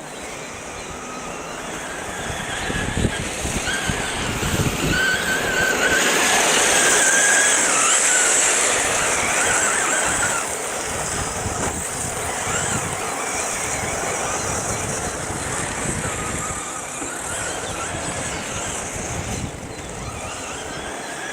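Brushless-motored 1:8 electric RC cars driving, a high motor whine that rises and falls in pitch with throttle, with tyre and gravel hiss; it swells as a car passes close, loudest about six to nine seconds in, then eases off.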